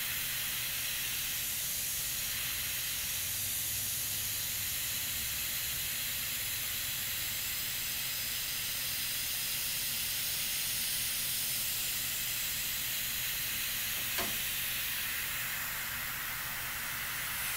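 Steady hiss of compressed air and paint spraying from an airbrush during fine detail shading.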